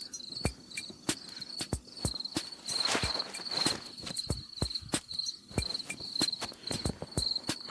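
Crickets chirping in short, evenly repeated pulses, with sharp clicks throughout and a brief rustle about three seconds in.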